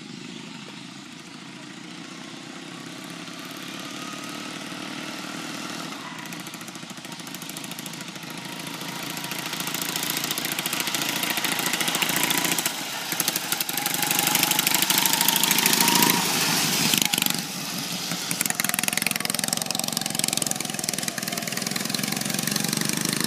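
Straight-piped racing lawn mower engine running as the mower drives along the road. It grows steadily louder as it comes closer, peaks a little past halfway, and drops back briefly after that.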